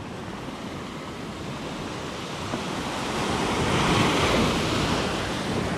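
Ocean surf breaking and washing up onto a sand beach, swelling to its loudest about two-thirds of the way through and then easing off.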